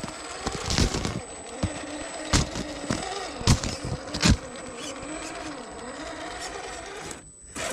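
Traxxas TRX-4 Sport RC crawler's electric motor and geared drivetrain whining as it climbs a snow bank, the pitch rising and falling with the throttle. Several sharp crunches come in the first half, and the whine drops away briefly near the end.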